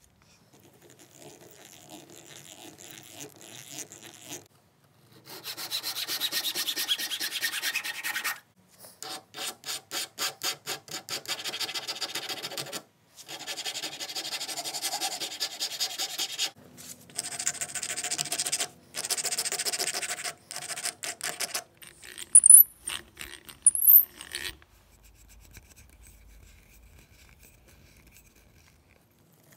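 Metal hand file rasping across a wooden stick, in bursts of quick back-and-forth strokes separated by short pauses, with two sharp high-pitched scrapes near the end of the filing. Afterwards only faint scratching as a small drill bit is turned by hand into the wood.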